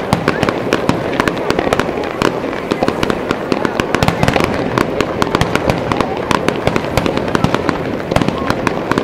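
Fireworks display: aerial shells bursting one after another, a dense, unbroken run of sharp pops and crackles with no pause between them.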